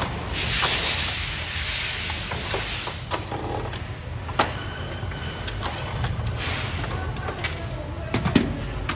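Cordless drill/driver whirring for about three seconds as it backs out a screw from the copier's scanner frame, followed by scattered knocks and plastic clatter as the document feeder is lifted and handled, over a steady low hum.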